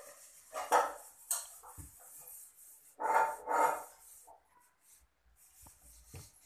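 Kittens crying out during play: a cry just under a second in, a short one after it, then two louder cries back to back about three seconds in.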